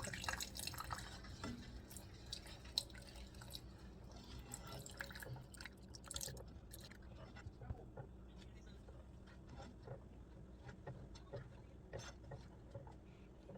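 Sauce cooking in a skillet, faint, with scattered small pops and crackles.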